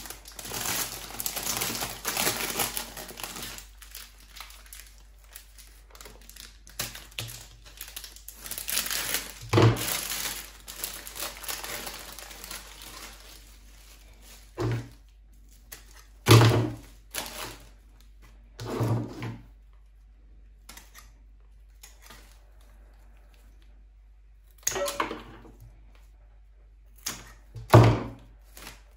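Plastic florist's sleeves on rose bouquets crinkling as they are cut open with flower shears and pulled off, in two longer stretches, one at the start and one around ten seconds in. Then a handful of separate sharp clicks and thunks as the stems are handled and trimmed.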